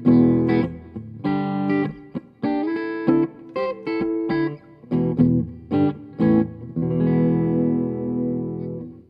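Electric guitar played through an amplifier: a run of short chord stabs, then a final chord left to ring for about two seconds, dying away near the end.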